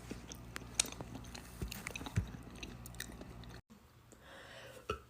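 Faint clicks and smacks of a person's mouth, with two low thuds about one and a half and two seconds in. The sound cuts out for an instant a little past halfway.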